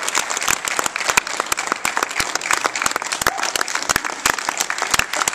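Spectators applauding: many hands clapping at once in a steady, dense patter.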